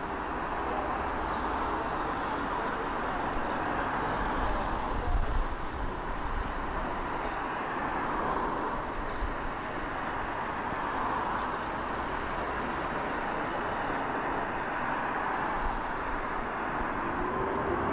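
Airbus A350 XWB's twin Rolls-Royce Trent XWB turbofans making a steady jet roar as the airliner banks overhead in a display flypast. A brief low rumble comes about five seconds in.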